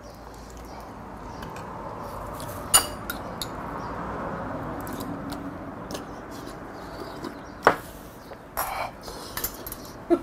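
Metal ladle and spoon clinking against a ceramic bowl and a pot as stew is ladled out and eaten: a few sharp clinks, the loudest about three seconds in and again near eight seconds, over a steady hiss.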